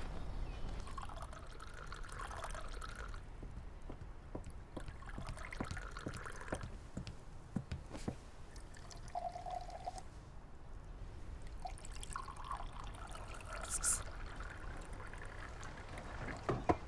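Liquid being poured and trickling, faint, in three short spells with scattered light clicks between them.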